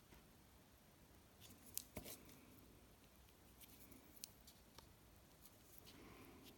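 Near silence with faint small clicks and light handling sounds from gloved hands working a fine nail-art brush; a few slightly louder clicks come about two seconds in, then scattered single ticks.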